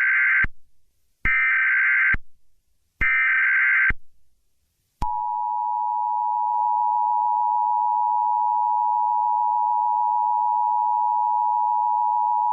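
Emergency Alert System tones announcing an emergency alert. Three short, harsh data bursts of the SAME header come about a second apart. About five seconds in, the steady two-tone attention signal (853 and 960 Hz) starts and holds.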